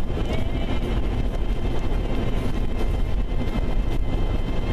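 Steady low rumble of a vehicle driving on the highway: engine and road noise, with a faint steady high whine above it.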